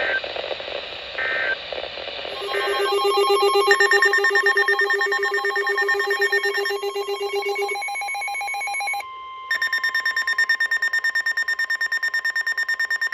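Emergency Alert System tones: three short digital data bursts, then a loud electronic alarm tone that pulses rapidly, with a single steady tone running under it from about eight seconds in. They signal the start of a new severe thunderstorm warning.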